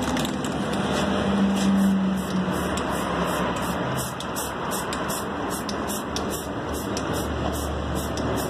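Aerosol spray-paint can being shaken, its mixing ball rattling about two or three times a second, over steady traffic noise.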